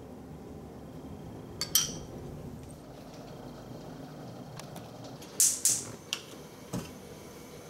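Metal spoon clinking against a small glass bowl while stirring a sauce: a single clink about two seconds in, then a louder pair of clatters about two-thirds of the way through and two lighter knocks after them.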